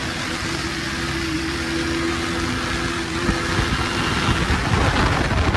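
KTM 250 Duke motorcycle engine running steadily, then a louder rush of wind and road noise building over the last two seconds as the bike gathers speed.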